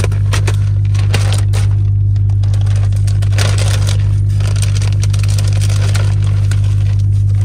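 Clear protective plastic sheeting crinkling and crackling as it is cut and pulled away from a new truck cab's interior, over a loud steady low hum.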